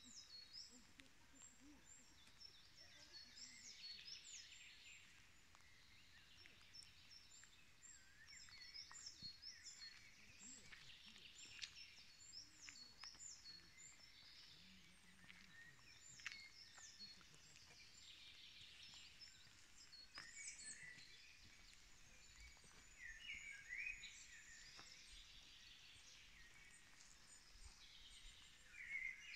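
Faint woodland birdsong: several songbirds singing at once, with short chirps and whistled phrases overlapping.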